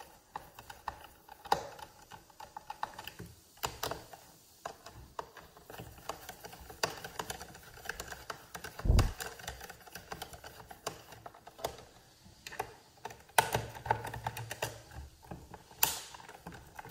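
Small Phillips screwdriver working screws out of a plastic leaf blower housing: irregular small clicks and taps of the tool and the plastic, with a dull thump about halfway through.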